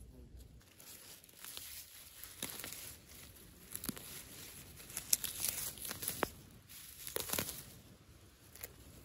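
Plant leaves and stems being torn and snapped by hand: irregular rustling and crackling with sharp snaps, the loudest clusters about five and seven seconds in.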